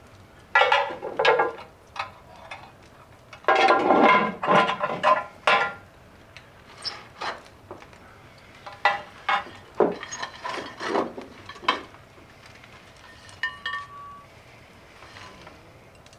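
Heavy cast-iron bake kettle lid clanking onto the pot, then a metal shovel scraping up hot coals from a stone hearth and tipping them onto the lid, with clinks and rattles of embers. The heaviest clatter comes in the first six seconds, then lighter clinks and knocks follow.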